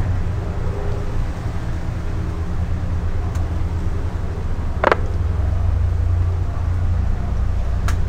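Single-engine light propeller plane's piston engine running at low landing power as the plane flares, touches down and rolls out: a steady low drone. A short sharp noise cuts in about five seconds in.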